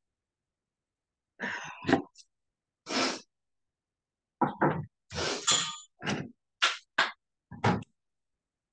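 Short knocks, bumps and rustles of someone getting up from a desk and moving about: about eight separate noises, each under half a second, spread over a few seconds.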